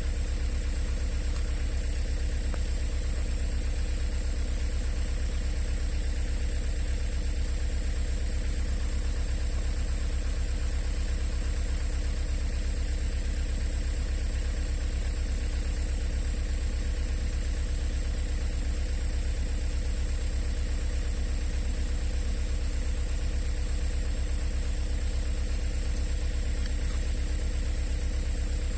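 Excavator's diesel engine idling steadily, an even low rumble that does not change.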